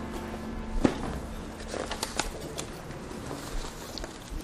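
A knock about a second in as a leather briefcase comes down on a stone floor, then the scattered rustling and shuffling of loose sheets of paper being handled and gathered up.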